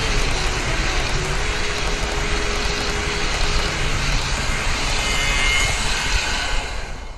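HO-scale model passenger coaches rolling along the track close by: a steady rumbling whir of wheels on rail that fades out near the end.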